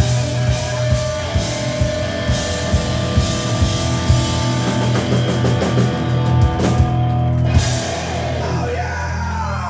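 Live heavy metal band playing, with distorted electric guitars, bass and a drum kit. The drum hits stop about eight seconds in, leaving a held chord.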